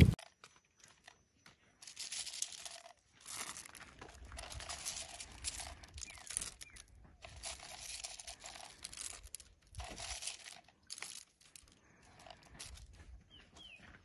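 Leaves rustling and crinkling in short irregular bursts as they are handled and laid in a basket, with brief quiet gaps between.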